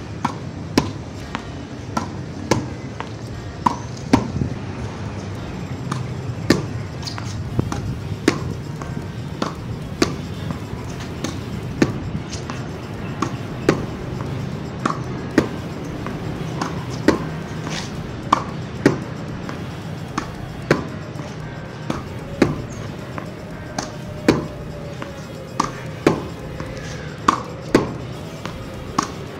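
A tennis racket hitting topspin forehands in a solo rally: sharp pops of racket on ball and of the ball bouncing, recurring about once a second, over background music.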